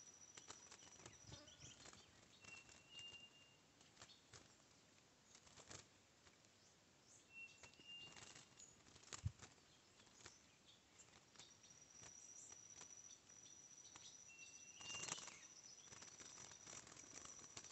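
Faint wing flutters and light taps as a wild curió (chestnut-bellied seed finch) flaps and clings at the side of a trap cage, with one sharper knock about nine seconds in. Short high call notes sound four times, over a faint steady high tone.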